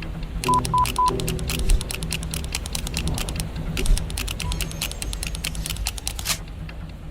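Rapid keyboard-like typing clicks over a low background music bed, with three short electronic beeps about half a second in; the clicking stops about six seconds in.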